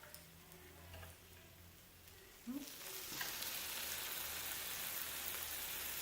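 Thin-sliced lamb sizzling on a hot grill: the sizzle starts suddenly about two and a half seconds in, after a quiet stretch with a low hum and a few light clicks, then continues steadily.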